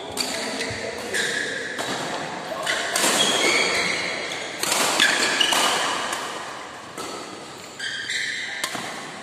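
A badminton rally: sharp racket strikes on the shuttlecock in quick succession, each ringing off the walls of a large hall, with short high squeaks of shoes on the court floor between them.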